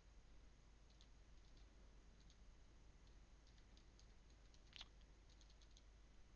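Faint, scattered computer keyboard key clicks over near silence as text is typed, with one slightly louder click about three-quarters of the way through.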